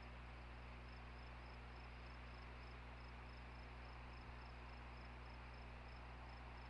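Steady low electrical hum and hiss from an outdoor nest-camera microphone, with a faint, even, high-pitched chirp repeating about four times a second and one small knock about four seconds in.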